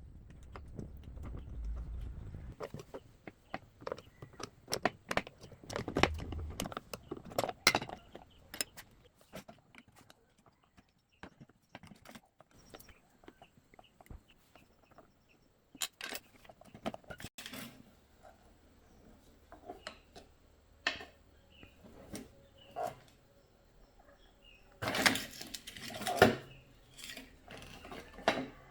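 Irregular clicks, knocks and rattles of small hard objects, like tools and parts being picked up, handled and set down, with a louder burst of rattling about 25 seconds in.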